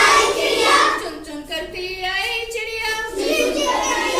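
A child singing a Hindi nursery rhyme in a sing-song voice.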